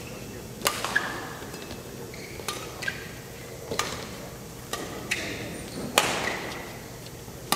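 Badminton rally: sharp racket strikes on the shuttlecock, about one a second, echoing around a large hall, with short squeaks from the players' shoes on the court mat between hits.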